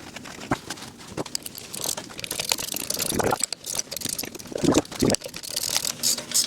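Irregular clicking and metal clatter of a ratchet wrench and hand tools as the three mounting bolts of a wheel hub assembly are run in and snugged down.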